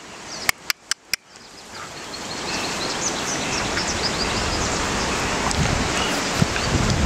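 Outdoor field ambience: a few sharp clicks in the first second, then a steady rushing hiss of wind fades up, with small birds chirping. Wind buffets the microphone near the end.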